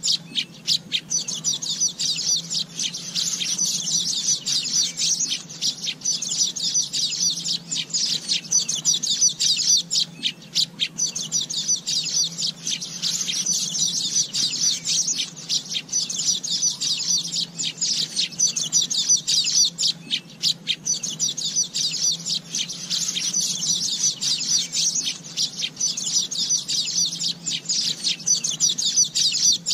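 Asian golden weavers chattering: a dense, unbroken stream of rapid high chirps and chatter.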